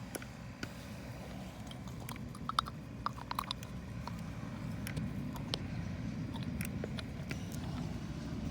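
Scattered small clicks and scrapes of hands and tools working on a riding mower's carburetor as it is being opened up, over a steady low background noise.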